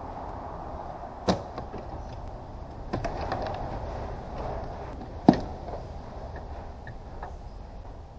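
Hard plastic trim being unclipped and handled in a car's engine bay: a sharp snap about a second in, a patch of clicking and scraping around three seconds, and a louder snap a little after five seconds, with lighter ticks between.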